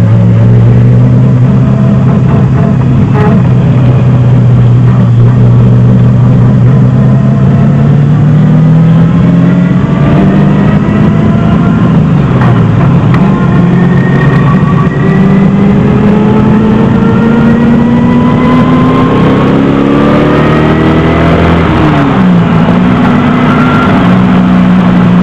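327 cubic-inch small-block Chevy V8 in a 1971 Datsun 240Z, heard loud from inside the cabin under hard driving on track. The revs hold steady, dip and come back up about halfway, then climb steadily for several seconds before dropping sharply near the end and settling.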